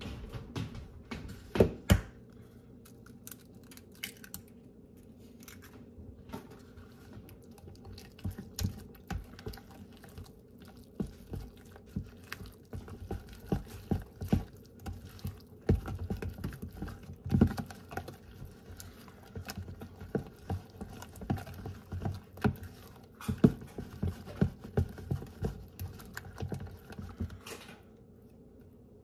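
A metal fork stirring thick batter in a plastic bowl: irregular tapping and scraping against the bowl, with two louder knocks about two seconds in, stopping shortly before the end.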